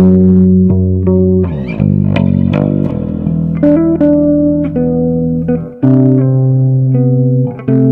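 Background music: plucked guitar chords over a low bass note, the chords changing every second or so, with no singing.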